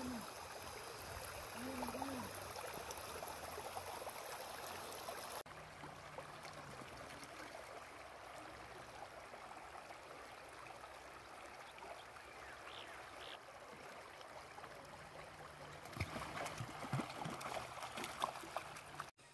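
Shallow river running over stones, a steady rush of water. Near the end, louder splashing as a beagle wades through the shallows.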